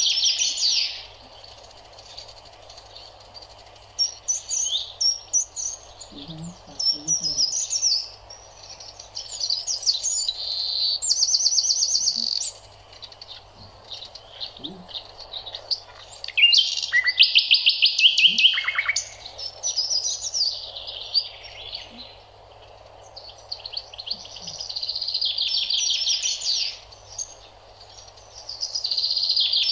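Songbirds singing, in bursts of quick high chirps and trills a second or two long with short pauses between.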